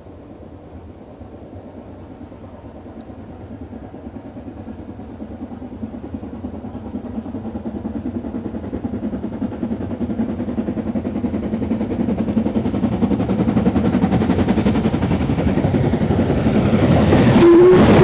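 LMS Stanier 8F 2-8-0 steam locomotive approaching at the head of a goods train, its exhaust and the rumble of the train growing steadily louder. A steam whistle starts to sound near the end.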